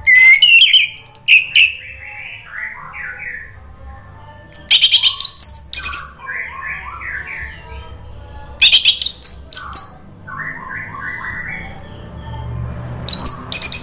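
Orange-headed thrush singing. It gives four loud bursts of rapid, very high-pitched notes, each followed by softer, lower warbling phrases.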